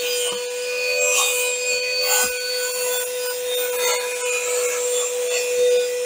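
XREXS cordless handheld vacuum cleaner running with a steady whine, its nozzle rubbing and scraping over car carpet as it sucks up sand.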